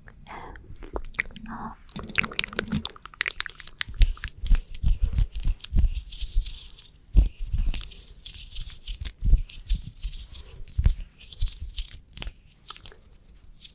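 Close-miked ASMR tapping on a small plastic fan and a standee clip: a dense run of crisp clicks, taps and crunchy knocks with low thumps, and a scratchy hiss through the middle.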